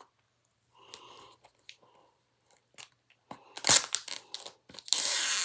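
Crackling and crinkling as leftover packaging (plastic wrap or sticker) is picked and peeled off the bottom of a DVD case. It starts a little past halfway and becomes a dense, steady crackle near the end.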